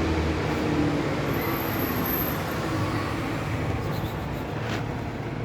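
Steady road traffic noise, with the low hum of vehicle engines.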